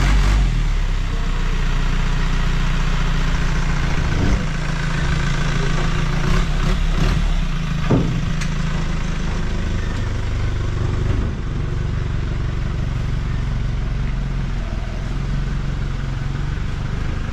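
Dump truck's engine idling steadily with its bed tipped, the load of soil sliding off, with a few short knocks and scrapes about four to eight seconds in.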